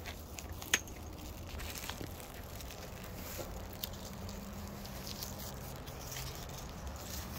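Quiet outdoor background with a steady low rumble, a few faint rustles and clicks, and one sharp click about a second in.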